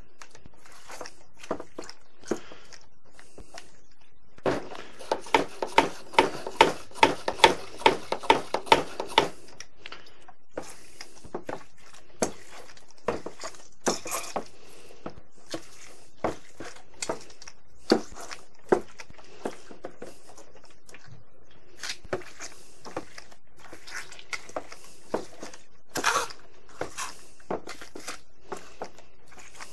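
Brine being injected into a raw pork loin with a hand-pumped pressure sprayer and needle: scattered clicks and taps, with a dense run of rapid clicks from about four to nine seconds in, and a short hiss of spray near the end.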